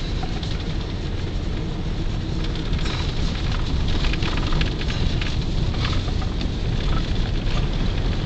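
Car driving slowly over a snow-covered road, heard from inside the cabin: a steady low rumble with many small crackles and clicks of tyres on packed snow and slush, busier from about three seconds in.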